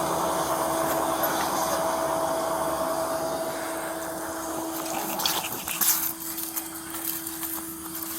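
Tow truck running with a steady whine while its winch cable is pulled out in free spool, with a rushing noise that fades after about three seconds. A few clicks and rattles follow.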